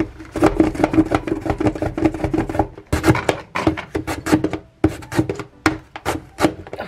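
A carrot being rubbed back and forth across the steel blade of a plastic box-type julienne slicer: quick, repeated rasping strokes with a couple of short pauses. The new slicer is not cutting well, so it is hard going.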